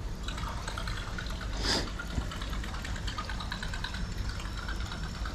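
Baitcasting reel cranked steadily on the retrieve, with a faint watery churning from a buzzbait running across the surface. A brief swish about two seconds in.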